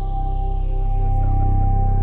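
Ambient background music: sustained, held tones over a low drone.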